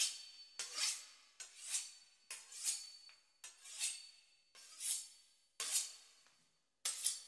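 A knife sawing back and forth through the crisp pastry crust of a beef Wellington, about one rasping stroke a second.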